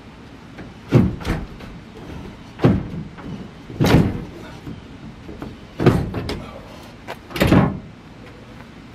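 A large sheet of OSB board being pushed and wiggled down into the gap between a pickup's camper shell and the truck bed. It bangs and scrapes against the truck five times, the board sticking as it goes in.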